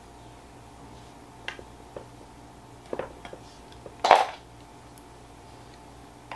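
Handling noises around a small clear acrylic enclosure: a few light clicks and taps, then one louder brief scuffing rustle a little after four seconds in, as a tissue bundle is set inside and a paintbrush is picked up.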